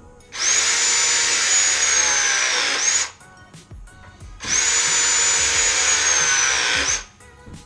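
Milwaukee M12 cordless copper tubing cutter cutting copper pipe in two runs of about three seconds each. Each run is a high motor whine over a grinding hiss, sagging slowly in pitch as the cut goes on and briefly rising again just as it stops.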